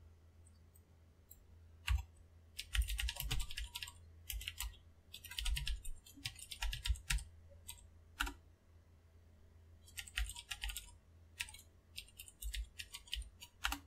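Typing on a computer keyboard in quick bursts of keystrokes with short pauses, starting about two seconds in, over a faint steady low hum.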